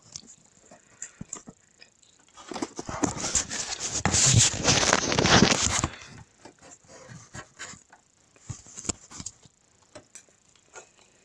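Rustling, rubbing and scattered knocks close to the microphone, with a dense, loud stretch of rubbing noise for about three and a half seconds in the middle.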